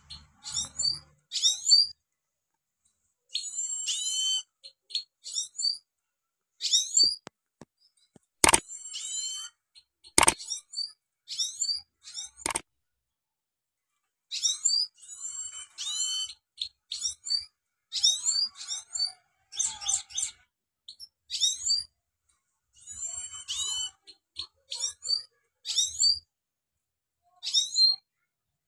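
European goldfinch singing: bursts of fast, high twittering and trilled phrases, each lasting a second or two, separated by short pauses. Three sharp clicks about two seconds apart near the middle, the loudest sounds heard.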